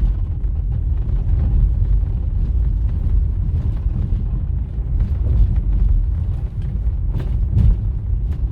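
Steady low rumble of a vehicle on the move, with a couple of sharp knocks near the end.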